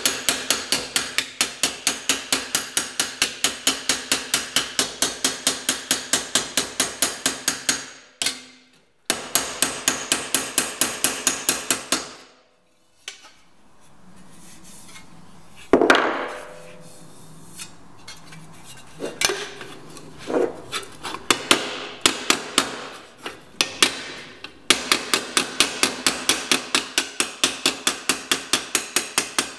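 Planishing hammer striking a metal repair panel held on a dolly, in rapid, evenly spaced light blows that smooth out the hammer marks. The blows stop about twelve seconds in, leaving a stretch of scattered single knocks, and start again rapidly near the end.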